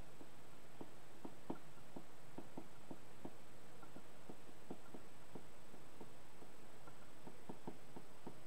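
Stylus tapping and clicking on a tablet screen while handwriting is written, light irregular taps at two to three a second.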